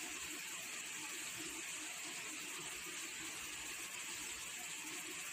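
A faint, steady hiss with no distinct sounds in it.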